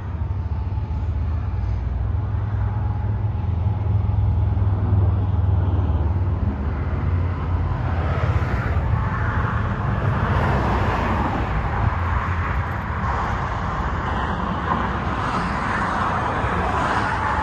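Car driving on the road: a steady low rumble of engine and road, with a hiss of tyre and wind noise that grows louder about halfway through and rises and falls.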